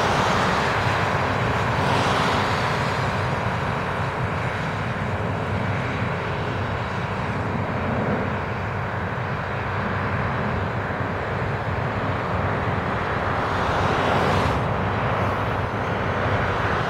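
Steady jet noise from a pair of McDonnell Douglas F-15 Eagles on final approach, a continuous rushing sound of their twin turbofans that swells only slightly.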